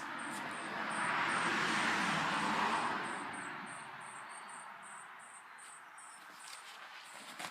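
A vehicle passing by, its noise swelling for the first couple of seconds and then fading away, over steady high-pitched insect chirping repeating a few times a second.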